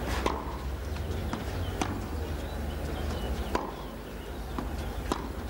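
Tennis rally on a clay court: racket strikes on the ball about every one and a half to two seconds, with softer bounces in between, over a steady low hum.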